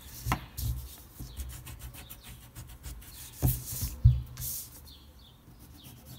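Pencil scratching on paper in short strokes while curves are drawn, with a few sharp knocks, the loudest about four seconds in.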